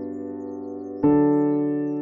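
Background music: slow, held keyboard chords, with a new chord struck about a second in that slowly fades.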